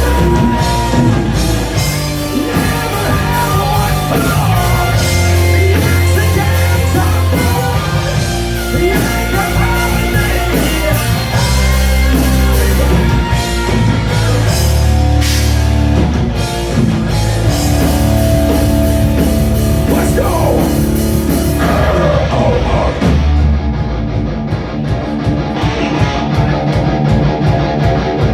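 A loud live metal band playing, with distorted electric guitars, bass and a drum kit. About 22 seconds in, the drums and then the bass drop out, leaving the guitar ringing on alone.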